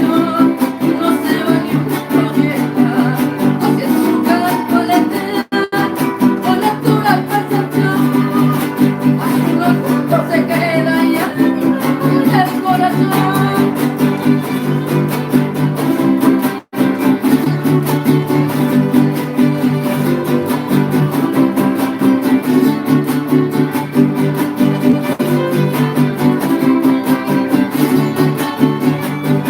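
Son huasteco trio playing a huapango: huapanguera and jarana strummed in a fast, steady rhythm under a wavering violin melody. The audio drops out for an instant twice, about five and a half and seventeen seconds in.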